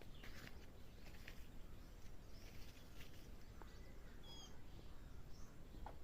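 Faint outdoor ambience with a few short, high bird chirps scattered through it, including two quick falling chirps past the middle.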